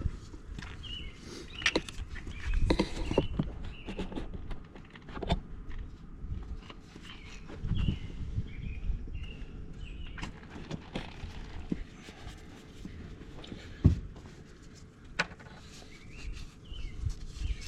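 Footsteps and scattered knocks and clicks from someone moving about and handling things, with birds chirping in short bursts. The sharpest knock comes just before the last few seconds.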